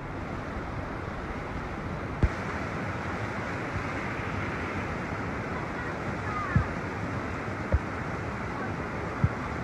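Fast-flowing floodwater rushing down a street in a steady wash of noise, with a few short dull thumps scattered through it.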